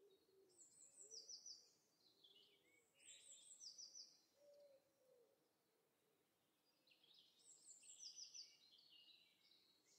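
Faint recorded nature-sound track of birdsong: small birds sing short phrases of quick high notes every few seconds, with a lower call repeated in the first half.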